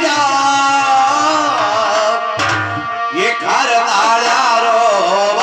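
Live folk stage music: a harmonium holds steady chords while a singing voice glides up and down in pitch, most clearly in the second half.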